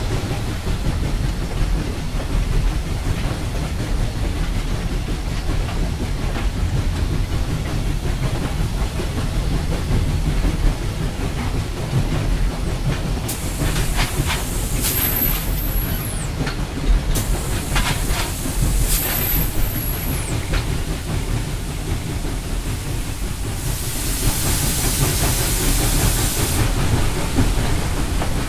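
Reading & Northern 425 steam locomotive and its train on the move: a steady low rumble of wheels on rail with a steam hiss. Two short high squeals come about halfway through, and a burst of hiss comes near the end.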